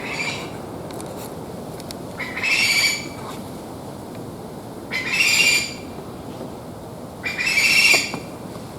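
Wild Okinawa rail calling: harsh, rasping squawks. A short one comes right at the start, then three louder ones follow about two and a half seconds apart.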